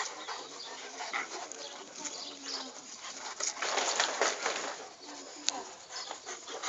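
A Saint Bernard and a wolf play-fighting, with short low dog vocalizations and scuffling in the snow. The busiest, loudest scuffle comes a little past halfway, and a sharp click follows near the end.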